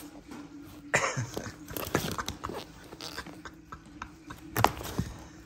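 Sulcata tortoise eating: irregular crunching bites and clicks, the strongest about a second in and shortly before the end.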